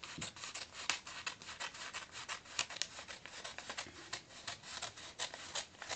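Scissors cutting through a sheet of paper: a run of short, irregular snips, several a second, with crisp paper rustle.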